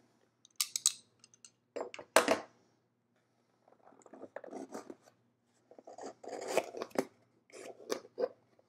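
A corrugated cardboard box being cut open, with a few sharp cutting strokes in the first couple of seconds. Then come longer stretches of cardboard scraping and rustling as the lid is worked open.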